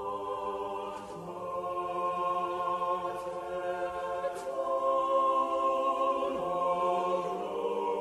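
Intro music: a choir singing long, sustained chant-like notes that swell louder partway through.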